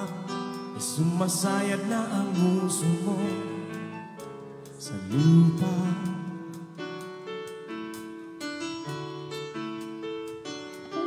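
Live band performing a song: singing over keyboard, electric bass, guitar and drums, with a louder swell about five seconds in.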